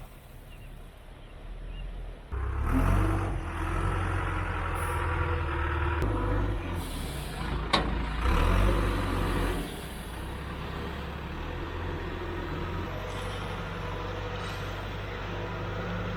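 Diesel engine of heavy equipment running. It gets louder and stronger a couple of seconds in, then drops back to a steadier, lower run near the middle. There is one brief sharp click-like sound partway through.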